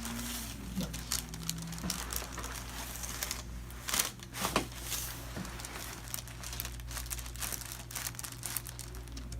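Crinkling and rustling as a patient shifts on a chiropractic treatment table during an adjustment, with two sharper clicks about four seconds in.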